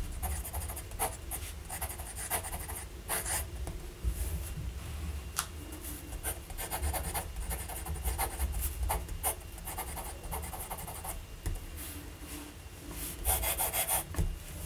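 Fountain pen nib scratching across paper in short, irregular strokes as cursive handwriting is written. Near the end a quick run of louder strokes as a flourish line is drawn under the signature.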